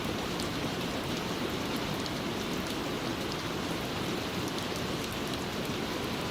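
Steady rain falling, an even hiss with faint scattered drop ticks, with no music over it.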